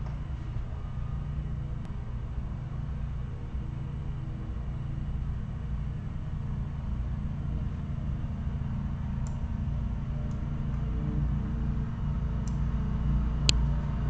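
Steady low rumble of background room noise, with a few light clicks in the second half, the last one sharpest.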